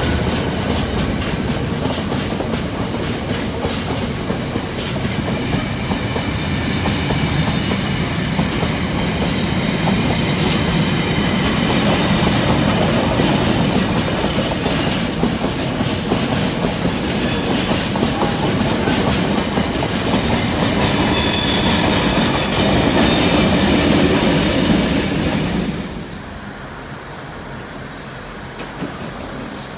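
A freight train's aggregate box wagons rolling past at close range with steady wheel and rail noise. About two-thirds of the way through comes a high-pitched wheel squeal lasting a few seconds. Near the end the sound drops suddenly to a much quieter background.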